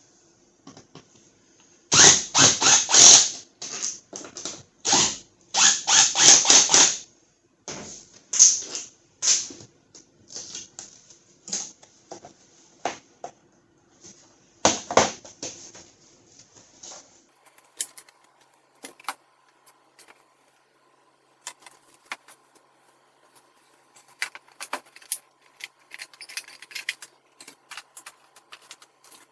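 Cordless drill-driver run in short bursts, two longer runs and several brief ones, taking out the screws that hold a pickup's third brake light. After that, scattered clicks and light knocks of the plastic light housing being handled.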